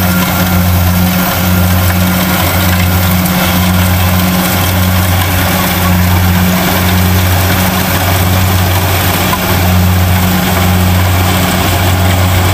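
Kubota DC-70 rice combine harvester's diesel engine running, a loud steady low drone with a slight regular pulse about every second and a half.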